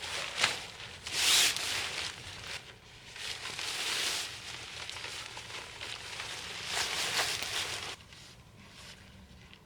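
Rustling and crinkling handling noises in three bursts, with a sharp click about half a second in.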